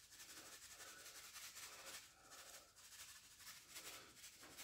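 Near silence, with faint rustling as dry seasoning is shaken from a paper pouch onto raw chicken.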